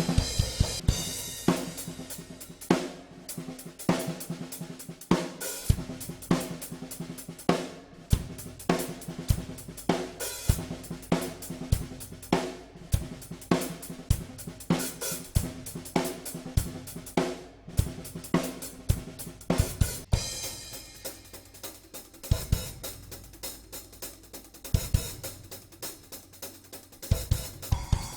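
Acoustic drum kit with Paiste PST5 and PST7 cymbals played in a steady groove: hi-hat, snare and bass drum strikes under cymbal ringing. About 20 s in the pattern changes to a brighter, denser cymbal wash over regular hits.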